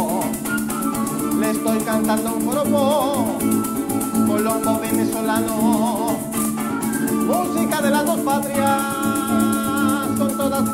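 Joropo played live on a strummed Venezuelan cuatro and electric bass over maracas shaking a steady fast rhythm, with a melody line sung or played with vibrato above it.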